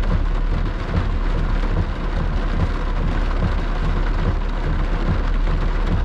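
Rain on the windshield and body of a moving car, heard from inside the cabin, over steady tyre and road noise on the wet pavement.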